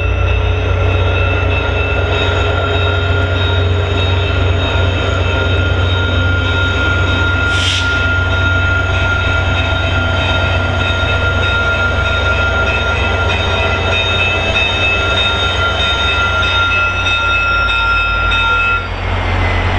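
Diesel locomotive running at close range: a steady low rumble under several steady high-pitched whining tones, which cut out shortly before the end. A short hiss about eight seconds in.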